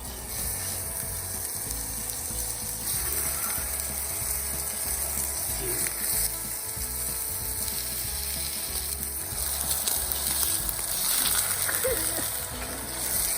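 Food sizzling over a campfire: a steady frying hiss with fine crackles that swells a little near the end.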